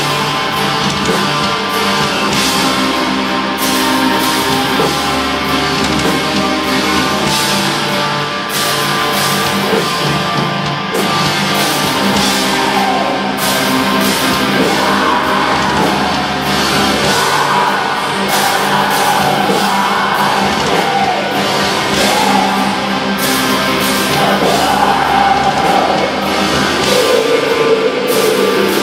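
Live black metal band playing: a dense wall of distorted guitars over drums. A wavering higher melodic line comes in about halfway through.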